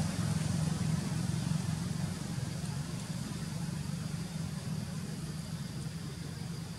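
Motor engine running with a steady low hum that slowly fades.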